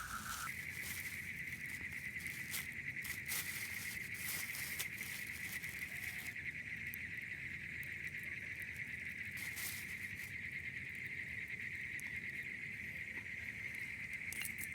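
Night insects, crickets or katydids, trilling in one steady high-pitched drone, with scattered soft clicks.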